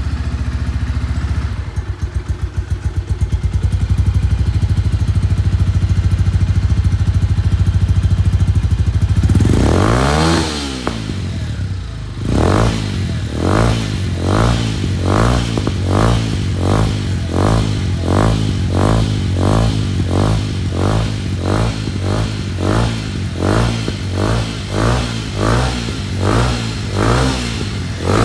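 Shelby Renz 200 motorcycle engine idling steadily, then revved up once and let fall back about ten seconds in, followed by a run of quick throttle blips, a little more than one a second.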